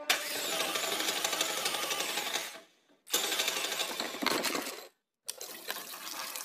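Dense, rapid clattering and rattling in three stretches, broken by a short dip about two and a half seconds in and a brief cut to silence about five seconds in.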